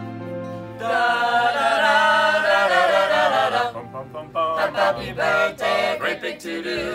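A group of voices (men, women and children) singing together; the singing comes in loud about a second in, with a long held phrase, then breaks into shorter, choppier sung syllables and stops suddenly at the end.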